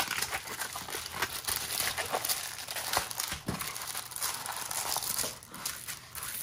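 Plastic crinkling in irregular crackles as a rolled diamond painting canvas and its clear plastic cover sheet are handled and spread flat by hand.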